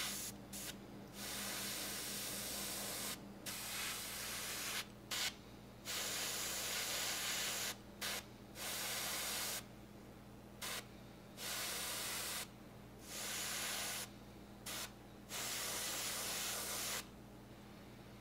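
Airbrush spraying matte flat clear coat over a model cockpit part in short bursts of hiss, about ten bursts of one to two seconds each with brief pauses between them.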